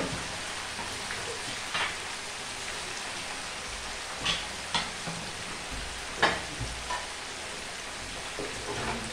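Food frying in hot cooking oil: a steady sizzle, with a few sharp knocks, the loudest about six seconds in.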